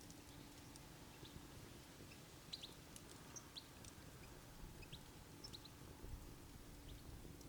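Faint campfire ambience: a low steady rumble of wind and fire, with scattered short, high crackles and a few soft bird chirps.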